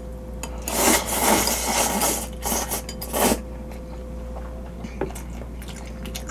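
A person slurping noodles from a bowl in several loud, hissing slurps during the first three and a half seconds, then only chewing-quiet.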